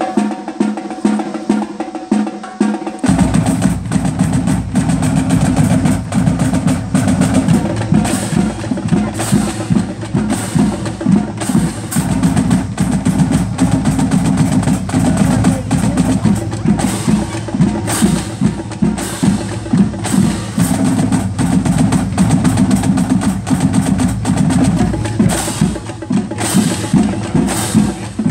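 A marching band's percussion section playing a drum feature: bass drums, timpani and other drums with rapid, dense strokes. Before that, about the first three seconds hold steadier sustained tones, and then the full drum texture comes in loudly.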